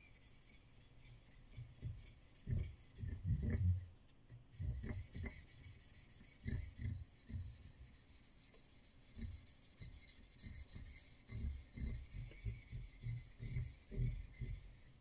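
Steel kanna (Japanese plane) blade rubbed back and forth on a wet Japanese natural whetstone, a Tajima stone: soft, deep grinding strokes of steel on stone, irregular, about one or two a second, the heaviest a few seconds in.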